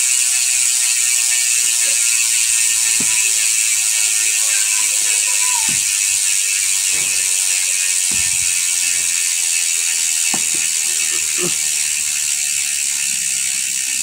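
Sword SWO2.3 rear hub's six-pawl freehub buzzing as the rear wheel coasts freely: a fast, steady ratchet clicking that fades a little as the wheel slows. The cranks stay still, which shows the freehub is freewheeling without drag.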